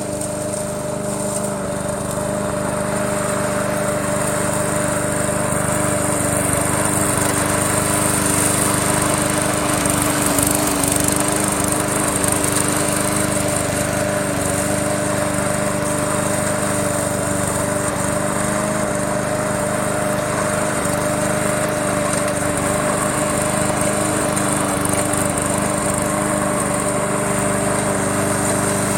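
Remote-controlled push lawn mower running steadily while cutting grass, a continuous machine drone with a high whine on top, growing a little louder over the first few seconds.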